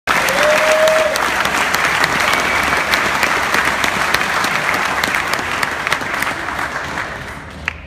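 Audience applauding, dense clapping that slowly dies down toward the end, with a single sharp click just before it stops.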